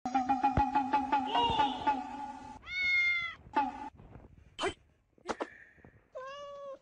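A kitten meowing twice, a short high meow about three seconds in and a lower one near the end. Before that, the loudest part: a steady pitched hum with rapid clicking for about two and a half seconds.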